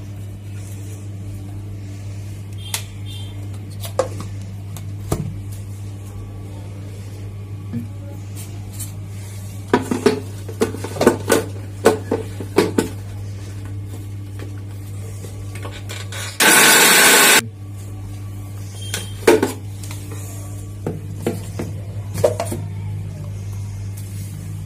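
Steel mixer-grinder jar and its lid clinking and knocking as they are handled and set on the base, then the mixer grinder runs in one short pulse of about a second, grinding sautéed onion, ginger and garlic, followed by a few more knocks.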